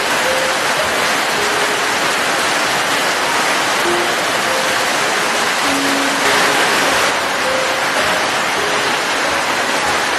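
Steady rain falling in a continuous hiss, briefly heavier about six seconds in. Soft, sparse single notes of gentle music at different pitches sound faintly over the rain.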